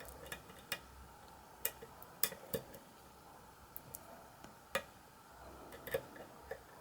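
Faint, irregular small metallic clicks of a hook pick working the pins inside a pin-tumbler lock held under tension, about a dozen scattered ticks.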